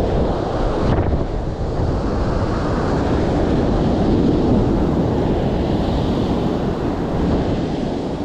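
Ocean surf washing in steadily, with wind rumbling on the microphone.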